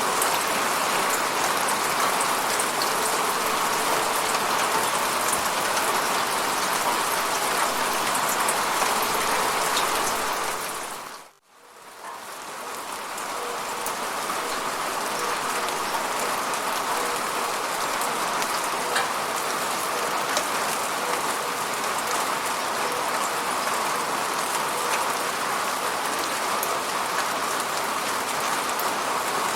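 Steady, dense rain falling. About eleven seconds in it fades briefly almost to silence, then fades back up over a couple of seconds.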